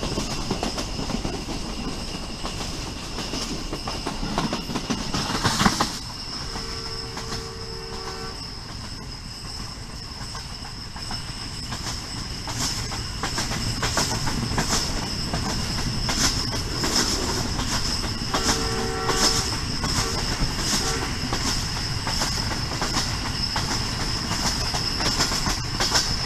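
On board the Pakistan Railways Subak Raftar rail car in motion: wheels clattering over rail joints under a steady high whine. The horn sounds twice: a two-tone blast about six seconds in lasting nearly two seconds, and a shorter one about eighteen seconds in.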